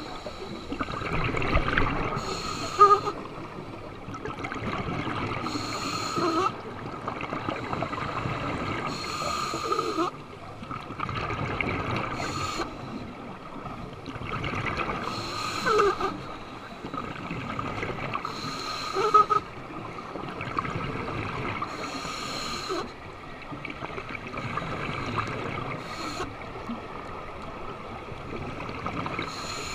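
Scuba regulator breathing heard through an underwater camera housing: a gurgling rush of exhaled bubbles comes about every three seconds, with quieter hissing breaths between.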